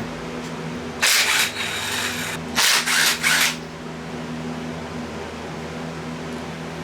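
Shop fan running with a steady hum, broken by two short, rough, loud noises about a second and two and a half seconds in, like metal parts being handled.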